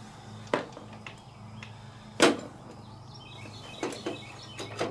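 A few sharp metal clicks and knocks from hands working the carburetor and throttle linkage on a Kohler CV15S engine. The loudest comes about two seconds in, with smaller ticks near the end, over a steady low hum.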